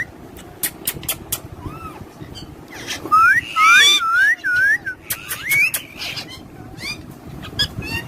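Pet parrots whistling and calling in short notes that swoop up and down in pitch, with sharp clicks in between. The loudest run of calls comes about three to four seconds in, with more around five seconds.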